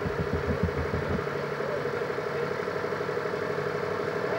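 A motor vehicle engine running steadily at low revs, with a low pulsing throb in the first second or so.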